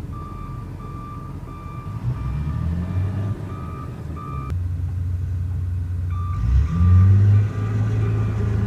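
Snow-clearing loader backing up close by: its backup alarm beeps about twice a second over its running engine. The beeping pauses about halfway through and starts again, and the engine revs up twice.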